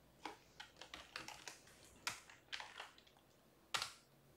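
Faint typing on a computer keyboard: a quick run of key presses, then a pause and one louder click near the end.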